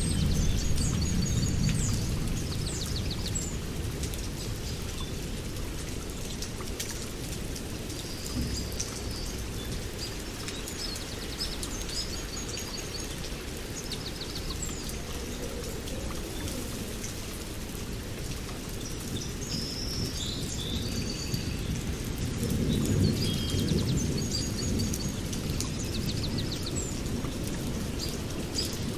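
Rain falling steadily with low rumbles of thunder, which fade over the first few seconds and swell again about three-quarters of the way through. Small birds chirp in short repeated trills throughout.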